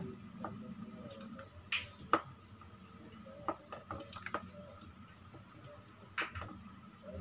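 Wooden spatula tapping and scraping against a plastic plate and a steel pot as sliced carrots are pushed into the pot of broth: scattered sharp clicks and knocks, about half a dozen, over a faint steady hum.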